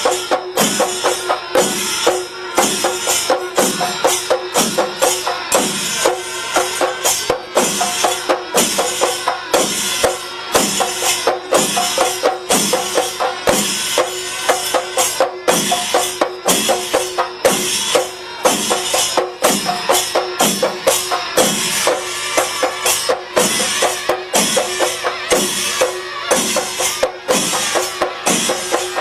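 Chenda melam: a large ensemble of Kerala chenda drums struck with sticks, with ilathalam hand cymbals clashing along, in a dense, steady, driving rhythm.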